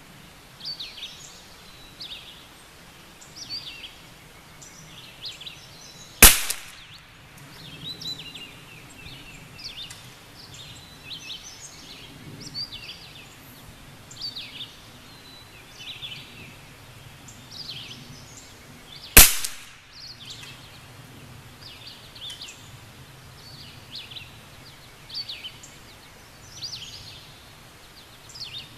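Two single shots from a .22 LR bolt-action rifle, each a sharp crack: one about six seconds in, the other about nineteen seconds in. Birds chirp steadily in the background.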